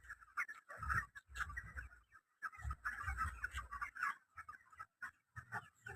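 Flock of 35-day-old broiler chickens calling softly in short, irregular notes, with intermittent low thumps.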